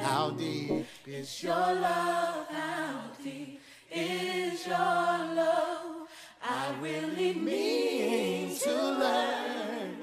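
Background music of sung vocals with little or no instrumental backing, in phrases a few seconds long with brief breaks between them.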